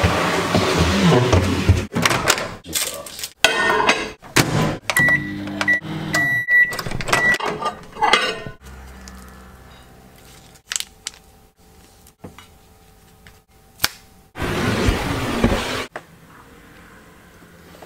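A footstool scrapes across a hard floor, then a string of clicks and knocks. A microwave oven then gives a run of short high beeps, followed by its quiet steady running hum. A loud burst of noise comes near the end.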